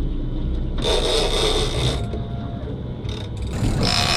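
Game-fishing reel's ratchet clicker buzzing as line is pulled off, in a short burst about a second in and then steadily from near the end: a marlin has taken the bait and is running with the line.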